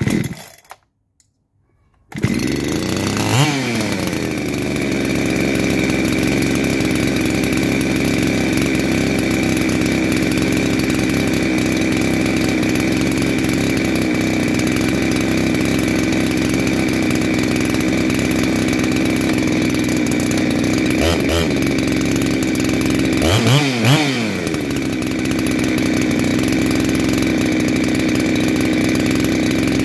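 Clone Husqvarna 372XP chainsaw's two-stroke engine pulled over and catching about two seconds in, on its first start after a top-end rebuild, then idling steadily. The revs rise and fall briefly just after it catches and twice more about two-thirds of the way through.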